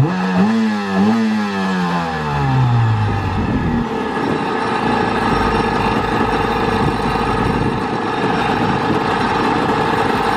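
Jet ski engine revving briefly, then winding back down to a steady idle. It is idling a little low, around 1500 RPM against the 1700 it should hold.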